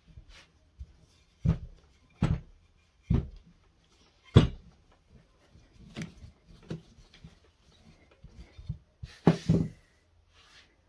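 Irregular knocks and thumps of a rolling pin against the work surface as pastry dough is rolled out, with a short rustle near the end.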